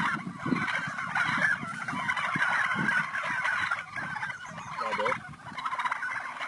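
A flock of domestic turkeys gobbling together in a continuous overlapping chorus of rapid, rattling calls.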